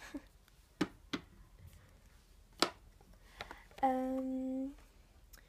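Small plastic skincare bottles and tubes set down one by one into a wooden tray: a few light knocks spread over about three seconds. Then a woman's short, steady hum, a little under a second long.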